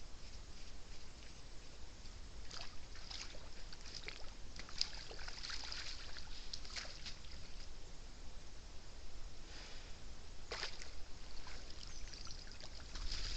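Wild boar splashing and sloshing in shallow water as it bathes, in irregular splashes, with a denser run in the first half and one sharp splash about ten seconds in.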